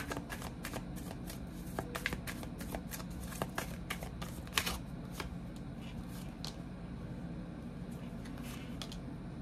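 Tarot cards being shuffled and handled: a run of quick, light clicks and riffles, thick for about the first half and thinning out after, over a steady low hum.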